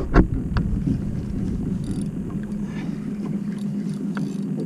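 Steady low drone of a motorboat engine running nearby, with a loud thump and a sharp knock right at the start.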